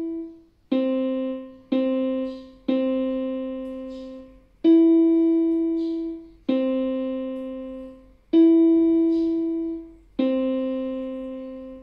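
Yamaha portable keyboard on a piano voice playing a slow beginner exercise on the notes E and C. Two short Cs are followed by a long C, then long Es and Cs alternate. Each note is struck and left to fade over about two seconds.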